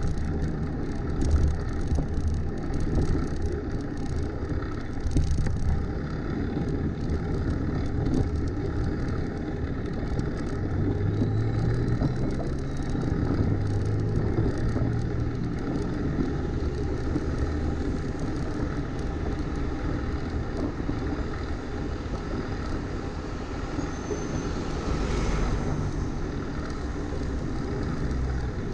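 Steady rush of wind on the microphone and tyre noise from a fixed-gear bicycle riding on a wet road, with rattling clicks in the first few seconds. A passing car's low engine hum swells and fades near the middle.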